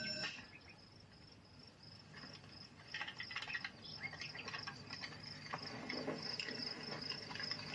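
A doorbell's sustained ringing cuts off a moment in, and then crickets chirp steadily and quickly. Scattered clicks and rattles come and go over them.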